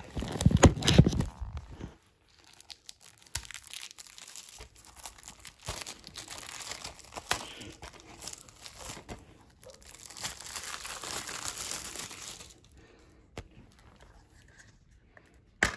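Plastic shrink-wrap on a DVD case crinkling and tearing as it is pulled off by hand, with loud knocks and handling noise at the start and a sharp click near the end.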